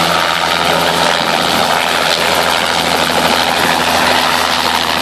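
Light helicopter hovering low, its rotor and engine making a steady, unbroken drone with a low hum beneath.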